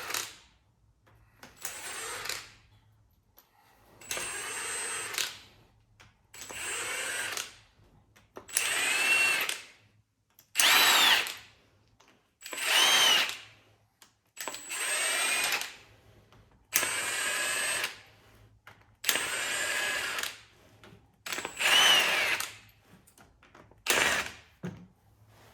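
Cordless power tool run in about a dozen short bursts, its motor whining up in pitch each time, spinning out the already-loosened injector fixings on a tractor diesel engine.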